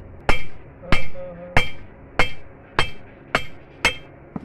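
Seven steady hammer blows on steel, about one every 0.6 s, each with a short metallic ring. They are driving a 1213 ball bearing down onto a tractor's rear axle shaft.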